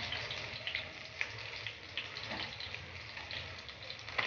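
Flour-and-semolina-coated fish pieces shallow-frying in hot oil: a steady, quiet sizzle with occasional small pops and clicks.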